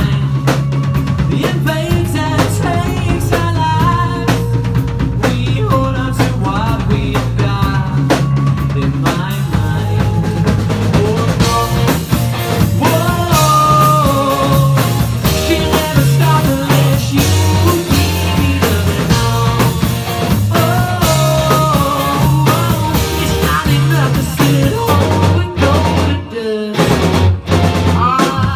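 Live rock band playing: a male lead vocal sung over electric guitars, bass guitar and drum kit. Near the end the bass and drums briefly drop out before coming back in.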